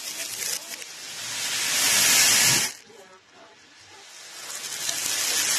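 Beads pouring and scattering across a tabletop, played in reverse: a rattling hiss swells up and cuts off suddenly just past the middle, then a second swell builds toward the end.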